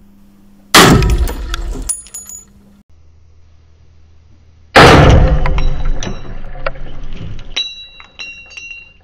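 Two rifle shots from a semi-automatic Browning BAR in .300 Winchester Magnum, about four seconds apart, each a sharp blast with a long echoing decay in an indoor range. Light metallic clinks and ringing follow each shot.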